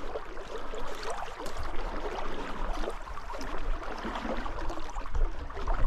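Trout stream water running and gurgling steadily, with a low rumble underneath.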